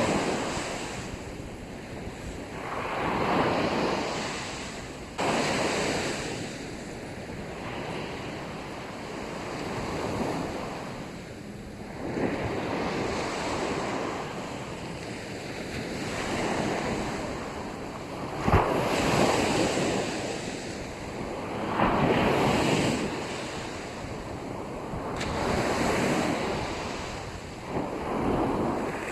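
Small sea waves breaking and washing up onto a sandy beach, surging and receding about every few seconds, with a few sharper breaks. Wind blows on the microphone.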